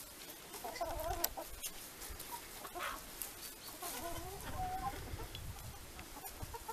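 Dominant hens clucking: two short bouts of wavering calls, about a second in and again about four seconds in.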